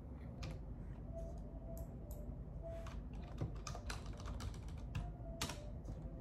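A run of irregular light clicks and taps, coming most thickly a little past halfway.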